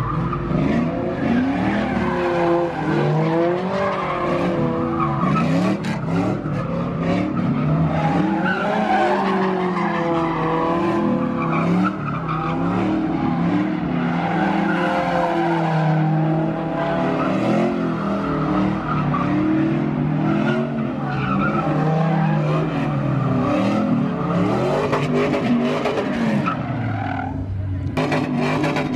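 Cars drifting and doing donuts on pavement: engines revving up and down, with tyres squealing and skidding.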